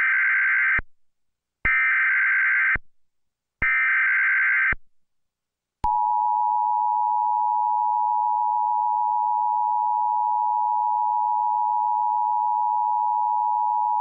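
Emergency Alert System SAME header: three buzzing bursts of data tones, each about a second long, with a second's gap between them. About six seconds in, the steady two-tone EAS attention signal (853 and 960 Hz) begins and holds for about eight seconds.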